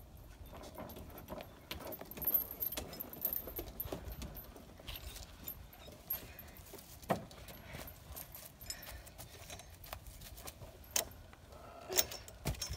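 Metal swing-set chains and trapeze rings jangling and clinking as a child climbs and hangs from them. The clinks come irregularly, with a few sharper knocks.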